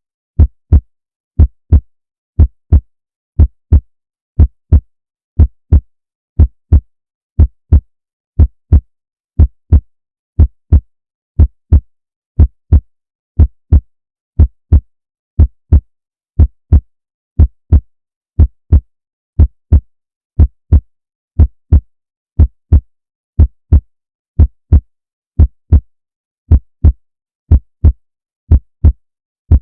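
A human heartbeat: a steady lub-dub of two low thumps in quick succession, repeating about once a second, with silence between beats.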